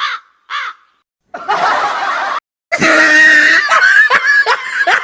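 Three short crow caws, each falling in pitch, followed by a noisy burst of about a second. Then comes a loud blast with steady tones, which goes over into repeated loud laughter.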